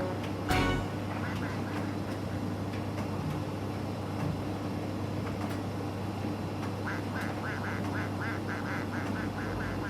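Miele T5205 tumble dryer running with its door open: a steady low hum. About seven seconds in, a fast repeating series of short squeaks or chirps, several a second, starts up.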